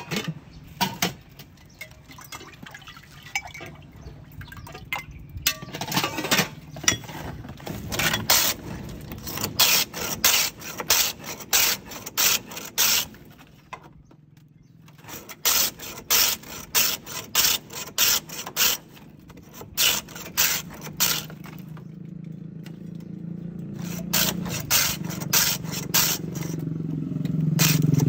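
Block of ice being pushed back and forth across the blade of a traditional wooden hand ice shaver, making rasping scrapes about twice a second with a short pause about halfway through.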